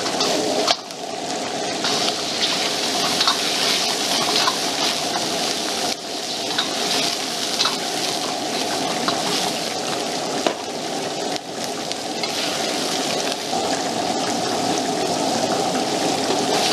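Vegetables and noodles sizzling as they are stir-fried in a wok over a high-power gas wok burner, with the burner's steady rush underneath and a metal ladle now and then scraping and knocking against the wok.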